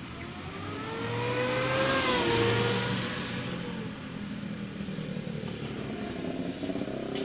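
Engine of a passing motor vehicle, its note rising in pitch as it accelerates and swells to its loudest about two seconds in, then easing down and fading away; another engine note starts rising near the end.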